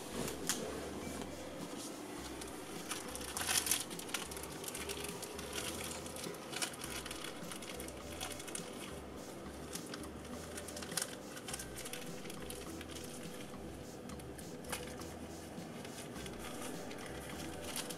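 Clear plastic ostomy pouch crinkling and rustling as it is handled and pressed onto the wafer on the belly, in small irregular crackles with a louder flurry about three and a half seconds in.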